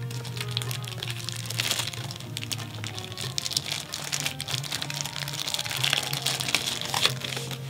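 Clear plastic sleeve crinkling and crackling as hands pull it off a small condenser microphone, with steady background music underneath.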